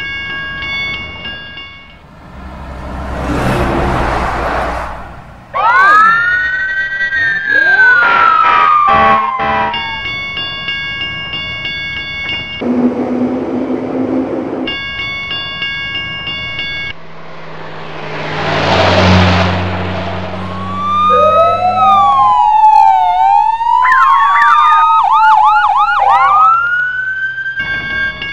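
Emergency-vehicle siren sound effects that wail and yelp, with rising and falling pitch, trading off with a held multi-tone horn chord that starts and stops several times. A rushing swell rises and fades twice, about four seconds in and again near nineteen seconds.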